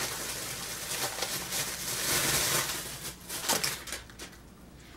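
Crinkling rustle of a bag being rummaged through by hand, crackling for about three and a half seconds and then dying down to a few faint clicks.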